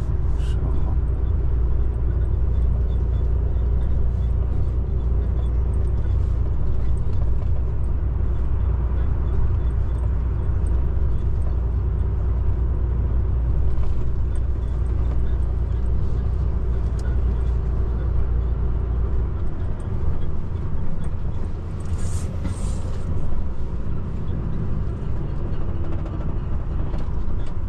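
Truck engine and road noise inside the cab while driving at highway speed: a steady low drone that eases off about two-thirds of the way through, with a brief hiss a little later.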